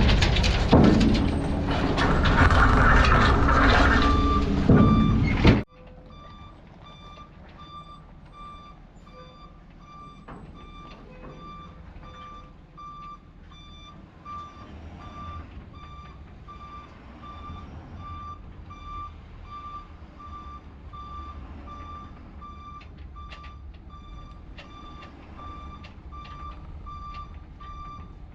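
Loud, rough machine noise that cuts off abruptly about five and a half seconds in. After that, a heavy vehicle's back-up alarm beeps steadily, about twice a second, over a low engine rumble.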